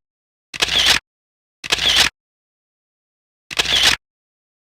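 Camera shutter sound effect, the same half-second shutter sound played three times at uneven gaps, with dead silence between.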